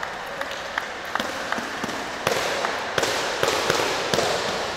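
Sharp smacks of a sepak takraw ball being kicked and hitting the court during a rally, over a background of hall noise. Several louder, echoing hits come in the second half.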